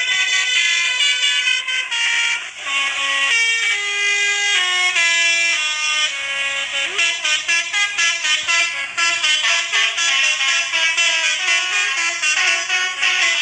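Basuri 'telolet' multi-tone air horn playing a tune, sounding a continuous run of loud notes that step up and down every half second or so.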